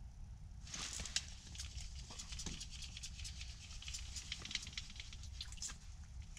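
Quick, irregular clicking and crackling from a small ice-fishing spinning reel and line being handled and reeled in, starting about a second in, over a low steady rumble.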